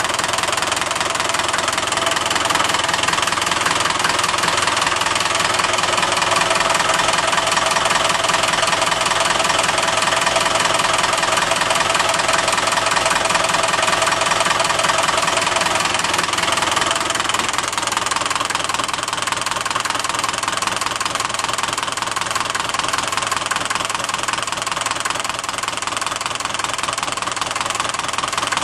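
Ferguson TEF-20 tractor's four-cylinder diesel engine idling steadily.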